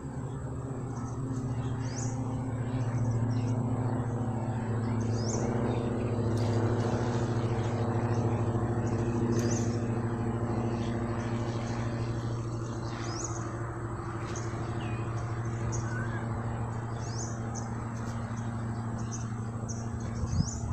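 A steady low engine hum that swells for several seconds and then eases, with a small bird's short high chirps repeating every second or two.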